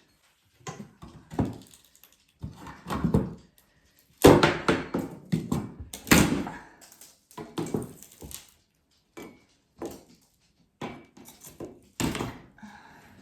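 Irregular wooden knocks, thuds and scrapes, as of wall trim being worked loose and handled; the loudest come about four and six seconds in.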